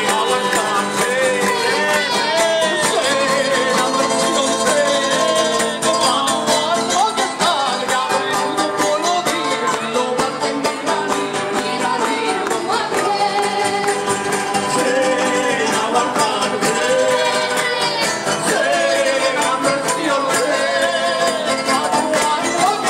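Live folk song: men's and a woman's voices singing into microphones, over a steady shaken tambourine beat.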